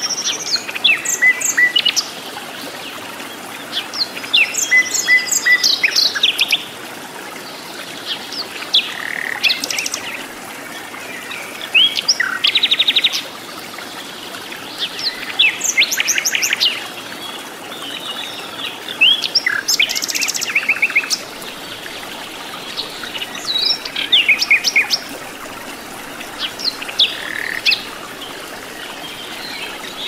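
Common nightingale singing: short, varied phrases of whistles, chirps and fast rattling note series, coming every few seconds with brief pauses between them, over a faint steady hiss.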